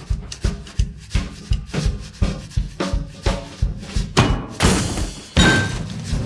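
Layered drum-kit percussion beating a steady rhythm of about two and a half beats a second. Near the end a rush of noise swells up and breaks into a loud crash.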